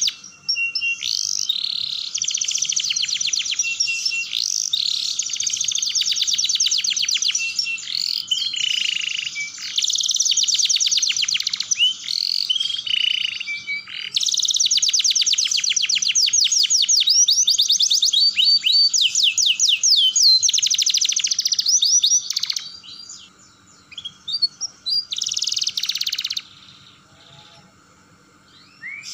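Domestic canary singing a long song of fast rolling trills and chattering notes. It sings in two long phrases, then only short bits of song over the last few seconds, with one loud burst among them.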